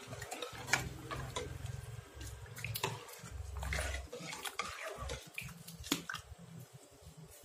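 Metal ladle stirring rice in a pot of boiling water: water swishing and bubbling, with a few sharp clinks of the ladle against the metal pot.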